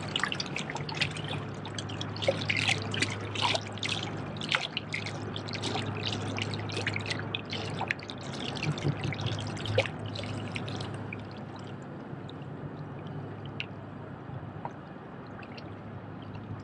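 Small waves lapping and trickling among shoreline rocks, with frequent little splashes that thin out about eleven seconds in.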